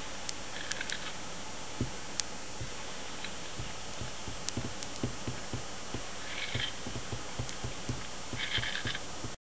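Gull giving short cries, once about a second in, again past six seconds and twice near the end, over a steady hiss with scattered clicks and soft low thumps. The sound cuts off abruptly just before the end.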